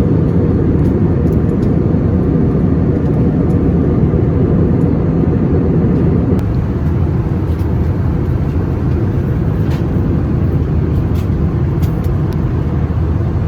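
Steady low rumble of a moving vehicle heard from inside its cabin, easing slightly about halfway through.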